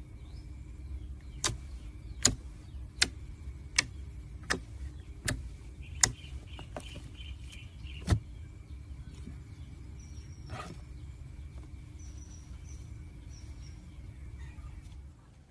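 Pink slime being stretched and squeezed by hand, giving a series of sharp pops, about one every three quarters of a second for the first six seconds and one more near eight seconds, over a low steady rumble.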